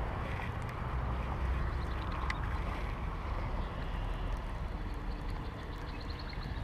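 Wind rumbling on the microphone over a steady outdoor hiss. In the last second or so, faint rapid ticking from a Shimano Caenan baitcasting reel being cranked to retrieve the lure.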